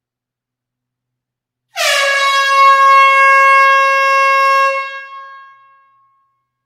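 Air horn blowing one long blast of about three seconds: a steady, bright tone that dips slightly in pitch right at the start, then fades out in an echoing tail from the enclosed hall.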